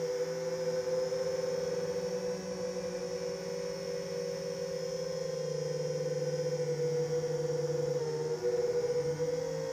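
DJI FPV quadcopter's motors and propellers giving a steady whining hum, several close tones that dip and waver briefly near the end as the throttle changes.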